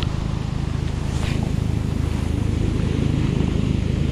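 Coast Guard helicopter passing over, its rotor beat a fast steady throb that grows slightly louder.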